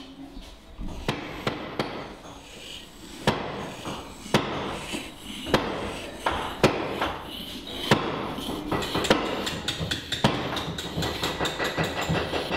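Hand tools working on a block at a workbench: sharp knocks roughly once a second, with scraping and rubbing between them and quicker small clicks near the end.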